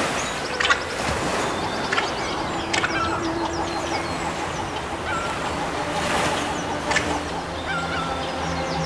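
Small sea waves washing over a rocky shore, with a few short bird calls and several sharp clicks.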